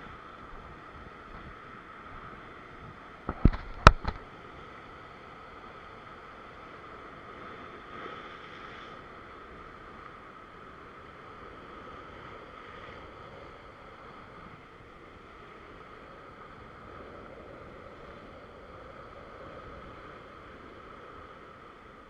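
Ocean swell washing and breaking against the rock ledge as a steady rushing wash, with two sharp knocks a moment apart about three and a half seconds in.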